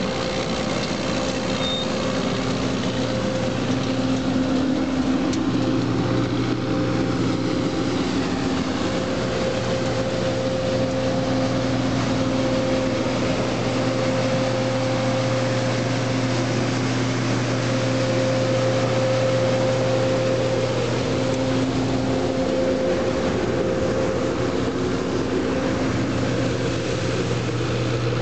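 Tymco 600 regenerative-air street sweeper running while it sweeps: a steady engine-and-blower hum over a broad noise of air and brushing.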